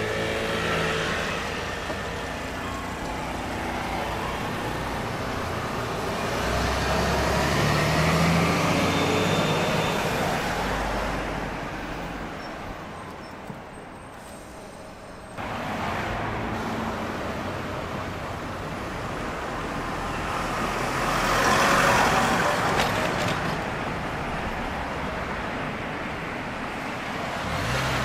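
Diesel city bus driving past on a narrow street, its engine note rising as it pulls away, over steady street traffic noise. The sound cuts abruptly about halfway through, and then another vehicle passes close by, loudest about three-quarters of the way through.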